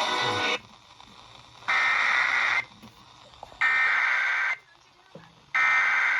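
Three bursts of the Emergency Alert System SAME header, the digital data tones sent ahead of an alert to encode it, here a river flood warning. Each burst lasts about a second, with about a second's pause between them. Radio music cuts off about half a second in, just before the first burst.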